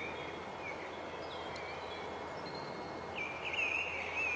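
Small birds chirping and warbling over a steady outdoor background hiss, the song getting busier near the end.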